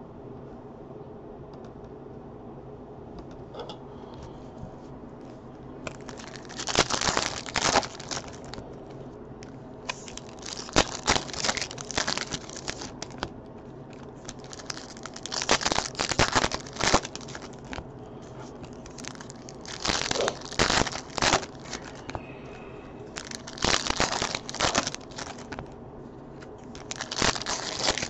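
Foil Topps Chrome card-pack wrappers being torn open and crumpled by hand, in about six crinkling bouts a few seconds apart. The bouts start about six seconds in, after a quiet stretch.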